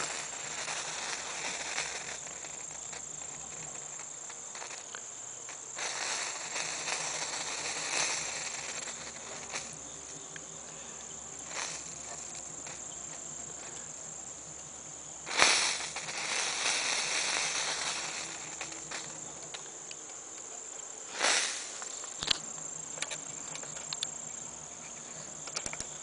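Crickets trilling steadily at a high pitch, with two louder rushes of noise, one about halfway through and a shorter one some seconds later.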